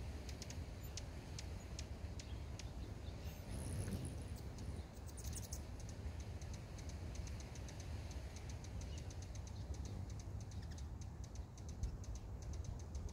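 Hummingbirds giving sharp, ticking chip calls, scattered at first and then in quick runs of several a second, over a steady low rumble.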